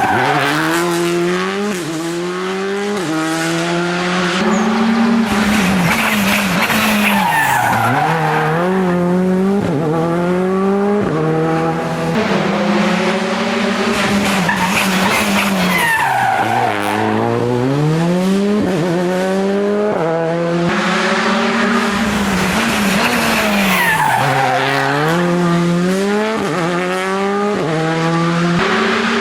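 Rally car engine revving hard and climbing up through the gears, with quick upshifts that each drop the revs before they climb again. Three times the revs fall away low as the car slows for a bend, then it accelerates hard again.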